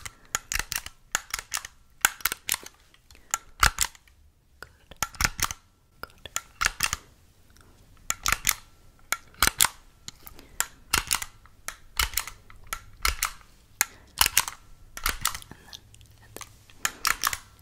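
Sharp mechanical clicks from small handheld plastic-and-metal gadgets worked close to a microphone. They come in quick clusters of two or three, about one cluster a second, with a short pause about four seconds in.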